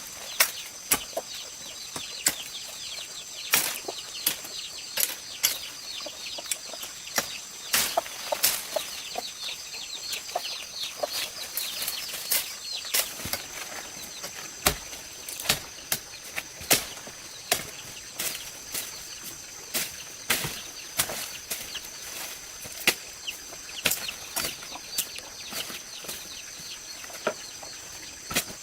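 Irregular sharp clicks and knocks, one or two a second, over a steady high insect drone. Quick falling bird chirps are heard through the first half.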